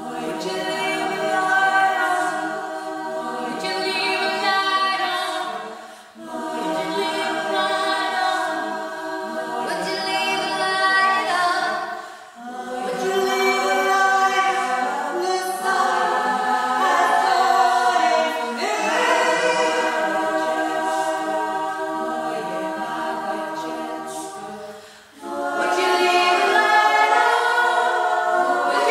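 A women's choir singing a slow, lullaby-like song a cappella, in long held phrases with brief pauses for breath about every six to twelve seconds.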